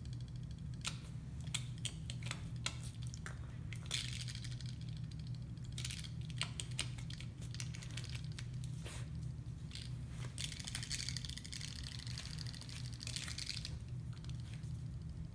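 A puppy chewing and gnawing, its teeth scraping and clicking in irregular bursts, with longer stretches of scraping about four seconds in and again from about ten to thirteen seconds in. A steady low hum runs underneath.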